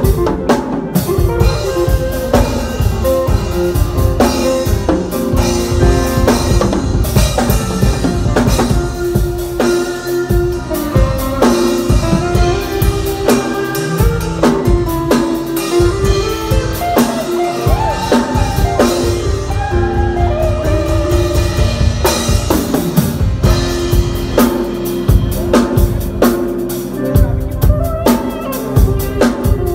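A live band playing: a drum kit with steady kick and snare hits under held, shifting melodic notes from the other instruments.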